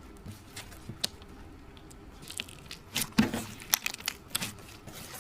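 Slime being squeezed and kneaded by hand, giving sticky clicks and small pops. The clicks are sparse at first and come thicker and louder from about two seconds in.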